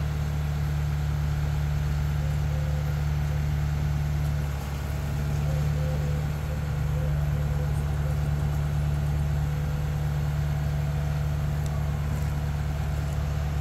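Tadano ATF 100G-4 all-terrain crane's diesel engine running steadily with a low, even drone as it holds a suspended catamaran.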